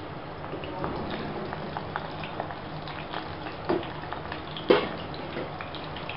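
Garlic pods frying in hot oil: a steady sizzle with scattered crackles and pops, two of them louder past the middle.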